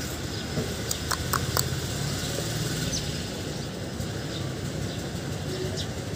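Outdoor background noise: a steady low rumble, with a few short high clicks about a second in.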